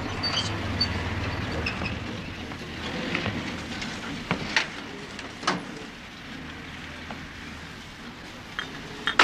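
A van's engine running low as it pulls up and stops, its hum fading over the first couple of seconds, with scattered small knocks and clicks. A sharp knock comes at the very end.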